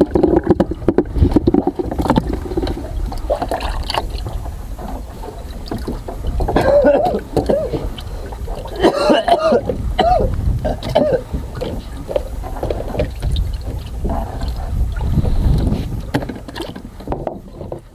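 Steady low rumble of a small fishing boat's engine, with knocks from a plastic cooler box being handled and indistinct voices partway through.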